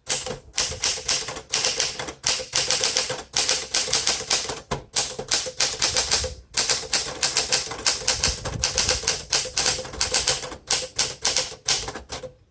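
1961 Smith Corona Sterling manual typewriter being typed on fast: a quick, steady run of key strikes, several a second, with a few brief pauses. The keys strike firmly and bounce right back, the sound of a machine in good mechanical order.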